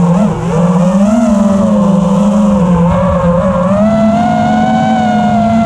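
FPV racing quadcopter's electric motors and propellers whining loudly, the pitch dipping and rising with the throttle near the start, then holding fairly steady and climbing slightly later on.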